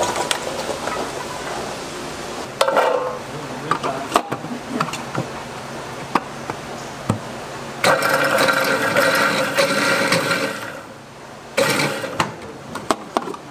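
Stainless steel commercial food processor mincing peeled garlic cloves: a metal ladle clatters as garlic is tipped into the bowl and the lid is clamped shut, then the motor runs steadily for about three seconds, with a shorter burst near the end.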